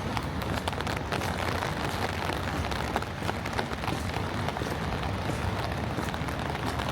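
Steady outdoor noise with a low rumble and many small scattered ticks and taps.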